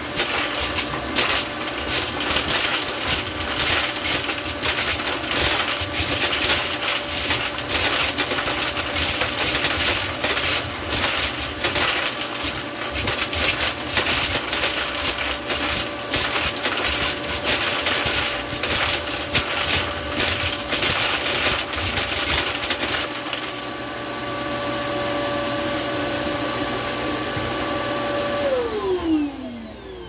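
KYOWA canister vacuum cleaner running at maximum suction with a steady whine while its hose sucks up a pile of coins, which clatter and rattle through the hose into the bin. The clatter stops about three-quarters of the way through and the motor runs on smoothly. Near the end it winds down, its whine falling in pitch.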